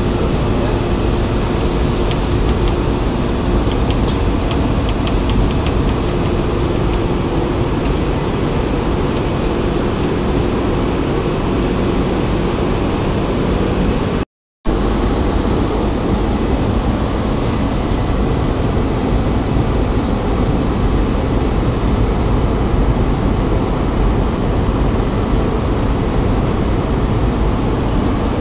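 Steady, loud rushing hiss of compressed air leaking from a pneumatic valve panel, cutting out for a split second about halfway through.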